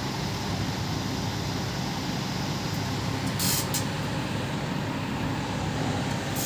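Drill bit grinder running steadily with a low rumble, with a short high hiss about three and a half seconds in.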